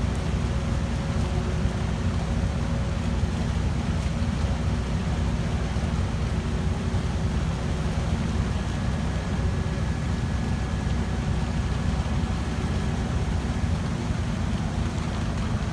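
Heavy construction machinery running steadily: a constant low engine rumble with faint steady whines above it.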